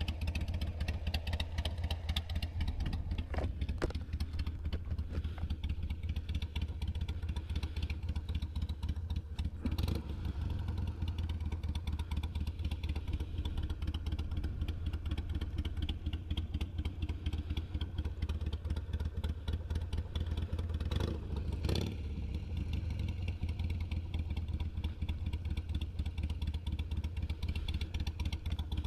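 Harley-Davidson Ultra Limited's Milwaukee-Eight 114 V-twin running steadily with a deep, even pulse, with a few short knocks near 4 seconds, 10 seconds and 22 seconds in.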